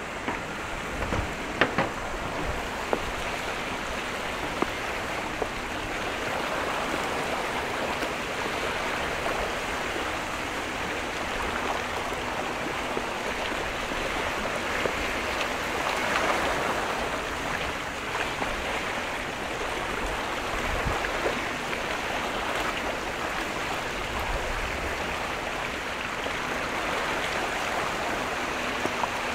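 Steady rush of moving water, with a few sharp clicks in the first two seconds.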